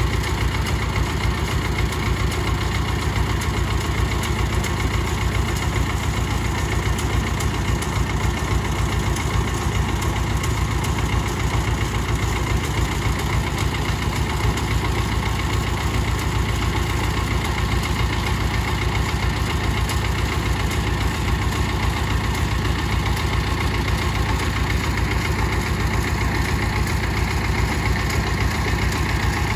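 Compact tractor's engine idling steadily, at an even level with no change in speed.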